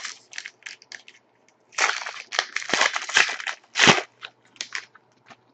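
Foil wrapper of a hockey trading-card pack crinkling and tearing as it is opened: a run of irregular crackly rustles starting about two seconds in and lasting about three seconds, with a few short clicks and rustles before and after.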